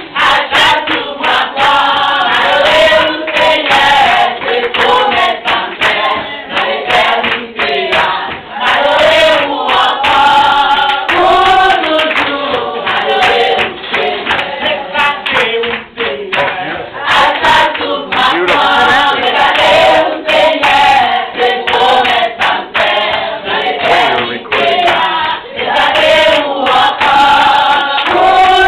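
A congregation of women singing a worship song together, loud and close in a small room, with hand claps keeping a steady beat.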